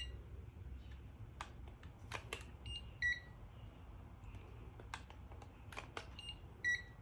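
Digital thermometers beeping as they take readings of hot water: three short high beeps, at the start, about three seconds in and near the end, with sharp clicks of buttons being pressed between them.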